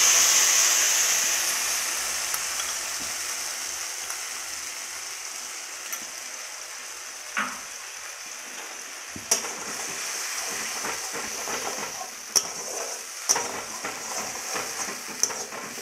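Wet spice paste hitting hot mustard oil in a metal kadai: a loud sizzle that slowly dies down over the first few seconds. From about halfway, a spatula stirring it, with sharp metal clicks and scrapes against the pan over a quieter sizzle.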